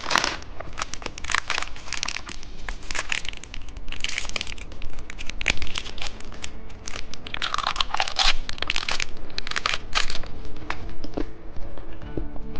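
Plastic candy wrappers being crinkled and torn open by hand, in a run of quick crackly bursts with a longer rustling swell past the middle.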